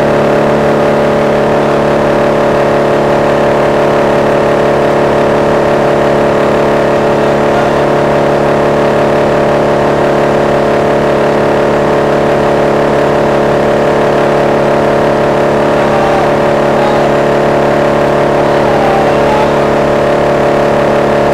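Wood chipper running at a steady speed, a loud, even machine hum that does not change pitch.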